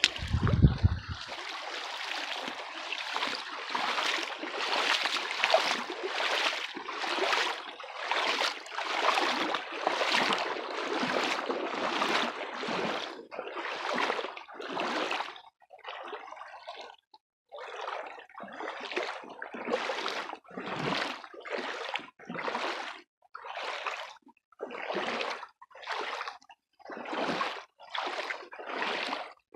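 Wading strides through a shallow, fast creek, each step a splash and swish of water against the legs, a little under two a second. The splashes run together for the first dozen seconds, then come apart as separate strides.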